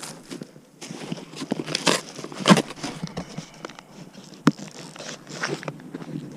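Handling noise: irregular knocks, scrapes and crackles, with a sharp knock about two and a half seconds in and a short click at about four and a half seconds.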